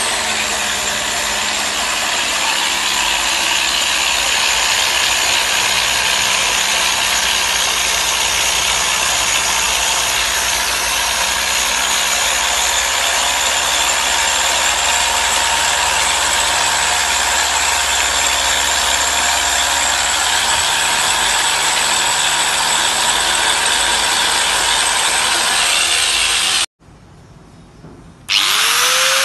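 DYK 1100 W angle grinder running steadily while submerged in a bucket of water, its motor whine mixed with churning, spraying water. Near the end the sound cuts out for a moment and comes back with a rising whine as the grinder spins up again.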